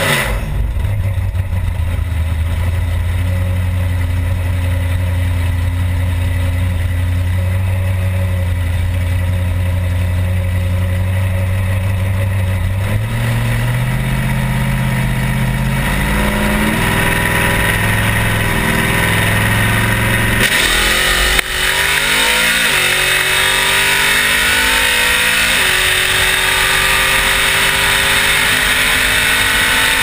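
Drag car's engine idling steadily at the starting line, then blipping as the car creeps into stage. About twenty seconds in it launches at full throttle and the engine revs climb, dropping in pitch twice a few seconds apart as the transmission upshifts, with rushing wind and tyre noise at the rear wheel.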